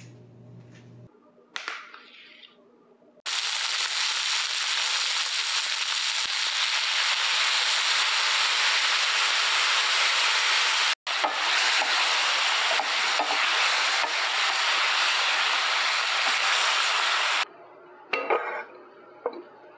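Pork ribs sizzling loudly in a stainless steel pan as bean paste, cooking wine and soy sauce are stirred in; the sizzle starts about three seconds in, breaks off for an instant about eleven seconds in, and stops near the end. A few short knocks follow as a clay pot is set on the stove.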